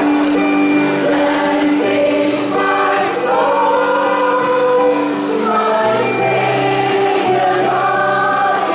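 A crowd of voices singing a song together in unison, with long held notes.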